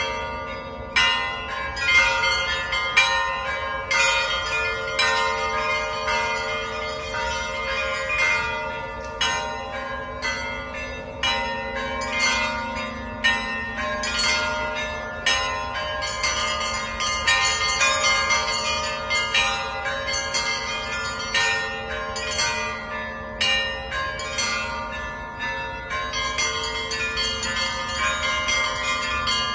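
Russian Orthodox church bells rung as a festal zvon: quick, rhythmic strokes of the small bells over the long, sustained ringing of the larger bells.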